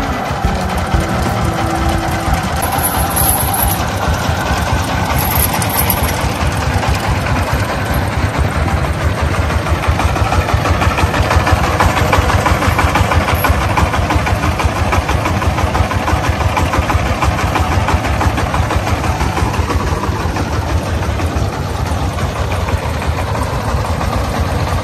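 A small engine running steadily with a fast, even knocking beat: a mini tractor driving.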